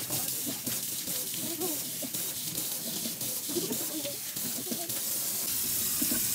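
Tap water running and splashing into a stainless steel kitchen sink, with some clicks and uneven splashing; the flow settles into a steadier rush about five and a half seconds in.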